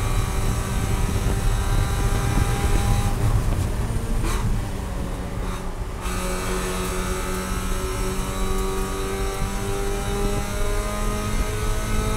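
Spec Miata's four-cylinder engine running hard in a race. About three seconds in it eases off for a few seconds, then pulls again with its pitch slowly rising as the car accelerates.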